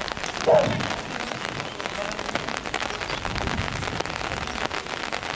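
Steady patter of rain, a crackling hiss full of fine drop ticks, with a short shout about half a second in.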